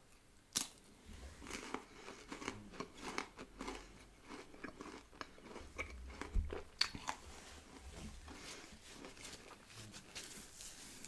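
Close-miked chewing and crunching of crunchy bits from a chocolate ice cream and Kinder Bueno White dessert: a run of sharp crunches and crackles. The loudest come about half a second in and again around six and a half to seven seconds.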